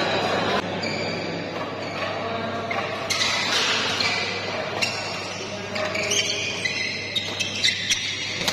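Crowd chatter and voices echoing in a large sports hall, swelling about three seconds in. Near the end a badminton rally starts: sharp racket strikes on the shuttlecock and shoe squeaks on the court.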